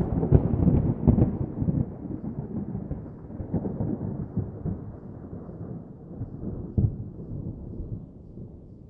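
A deep, crackling rumble that slowly dies away, with one sharper crack about seven seconds in.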